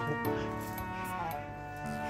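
Background music: sustained notes that change in steps.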